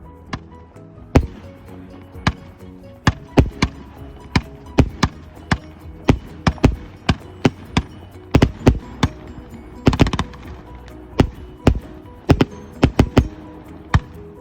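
Aerial fireworks shells bursting: a rapid, irregular series of sharp bangs, some in quick clusters, with music playing underneath.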